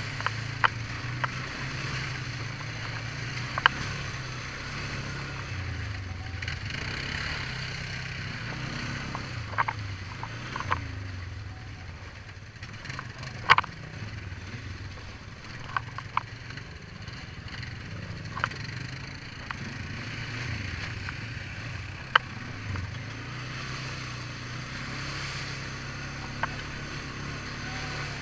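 ATV engine running while riding a rough dirt trail, its pitch rising and falling with the throttle. About a dozen sharp knocks and clatters are scattered through, the loudest about halfway.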